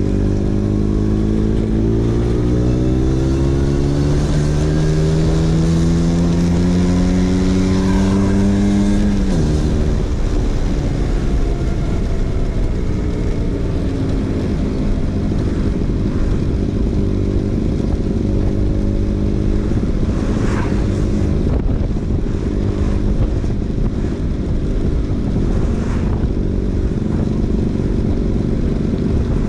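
Vespa PX 150's single-cylinder two-stroke engine running through a DRC Victory racing exhaust while riding. The engine note rises steadily for about nine seconds, then drops sharply as the throttle closes. It then runs on at a rougher, uneven note, with road and wind noise.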